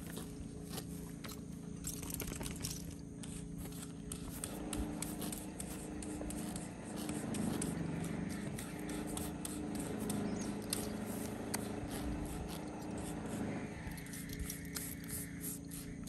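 Stiff-bristled body brush scraping over a horse's hindquarter coat in quick, repeated strokes, brushing the hair up against a stencil to raise a quarter-marker pattern. A low drone swells in behind it about a quarter of the way through and stops a few seconds before the end.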